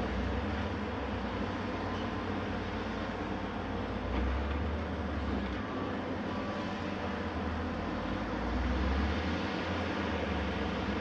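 Heavy demolition machinery running: the diesel engines of tracked excavators and a wheel loader working together, heard as a steady low rumble. The rumble swells briefly about four seconds in and again near the end, as the machines work harder.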